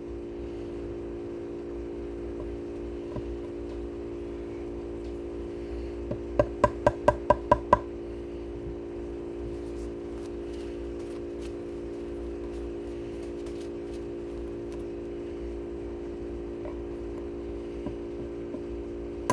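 A quick run of about nine sharp taps, roughly five a second, each with a short woody ring: hardwood dowel plugs being tapped into a guitar body's bridge mounting holes. A steady hum runs underneath.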